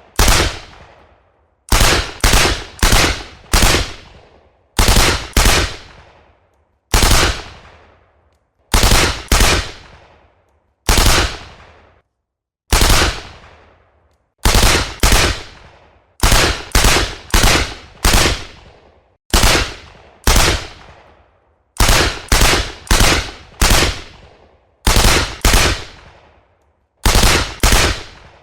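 Machine-gun fire sound effect: loud, sharp shots in short groups of one to four, each shot trailing off in an echo, with a pause of about a second between groups.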